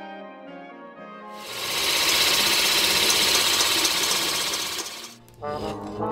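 Floor-standing pillar drill boring into a wooden wheel: a loud, steady drilling noise that starts about a second in and stops about a second before the end. Woodwind music is fading before it and comes back after it.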